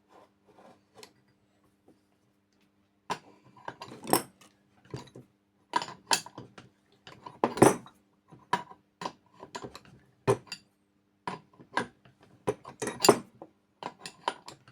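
Metal bearing-press tools (pressing cups and screw) clinking and knocking against the AC compressor pulley as the worn pulley bearing is worked out. After about three quiet seconds, irregular sharp metallic clinks follow at uneven spacing.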